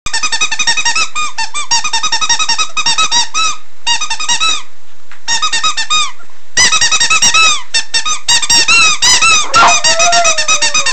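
Stuffed toy chick squeaking in rapid runs of short, high cheeps, in bursts broken by brief pauses. Near the end a lower, drawn-out tone slides slightly down in pitch.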